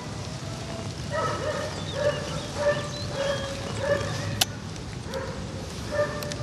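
A dog barking in a quick run of short, high yips, pausing around the middle and then starting again. There is one sharp click about four and a half seconds in.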